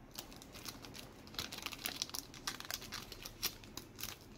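Foil trading-card booster-pack wrapper crinkling in the hands: a quiet run of irregular little crackles.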